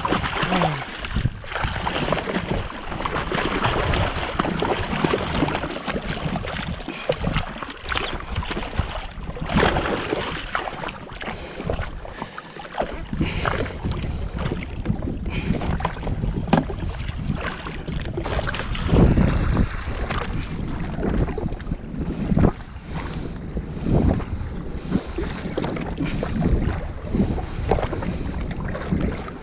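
Wind buffeting the camera microphone and water splashing and slapping around a jet ski, with irregular knocks throughout.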